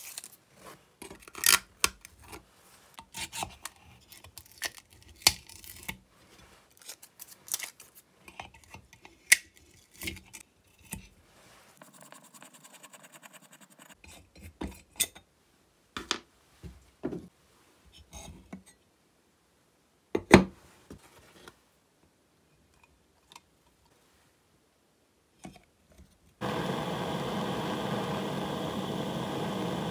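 Hand tools scraping, clicking and tapping on the chainsaw's cast metal gearbox housing, then parts being handled with a few sharp knocks. Near the end a butane torch on a gas canister starts and hisses steadily.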